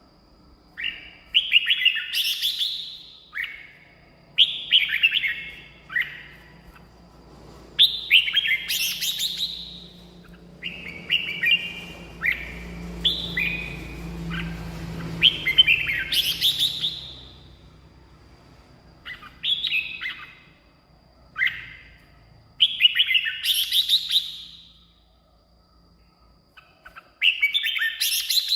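Red-whiskered bulbul singing: short, bright, warbling phrases of a second or two, with quick upward flourishes, repeated every few seconds with brief pauses between.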